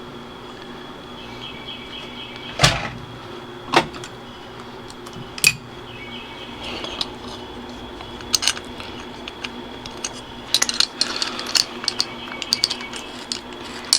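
Light metal clinks and knocks of bolts and steering wheel adapter parts being handled and fitted by hand: a few separate knocks in the first half, then a quicker run of small clinks near the end, over a steady faint hum.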